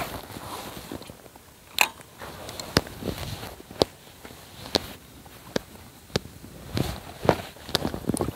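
Spinning reel and fishing rod being handled just after a cast: a run of short, sharp clicks, irregular and roughly one a second, over a faint hiss.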